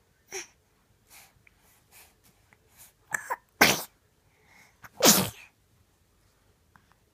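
A baby sneezing: two loud sneezes, about three and a half and five seconds in, with softer short sounds leading up to them.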